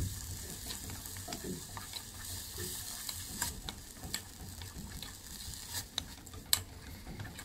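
Diced bacon, onion, green pepper, mushroom and chopped tomato sizzling softly in butter in a small hammered saucepan, cooking off the tomato's moisture. A wooden spoon stirs the mixture, with scattered clicks and scrapes against the pot.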